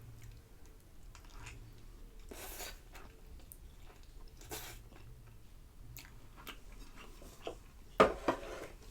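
Close-up chewing of a mouthful of food, here instant mi goreng noodles with fried egg and cucumber, with a few short soft crunches. Two sharp clicks near the end are the loudest sounds.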